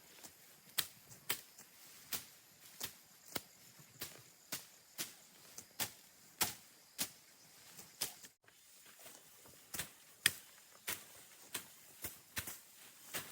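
A hand tool chopping repeatedly, clearing vegetation and soil from a pond bank: sharp strikes at about two a second, with a short pause about two-thirds of the way through.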